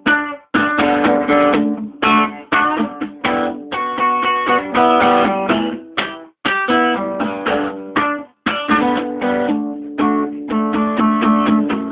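Acoustic guitar strumming chords with no singing, in short phrases broken by brief pauses.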